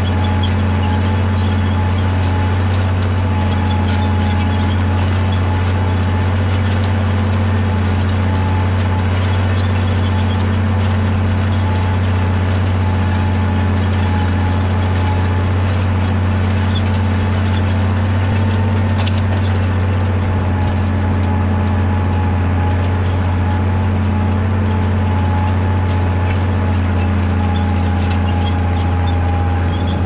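Tractor engine running steadily under load as it pulls an International Harvester six-disc plough through the soil: a constant low drone that does not change.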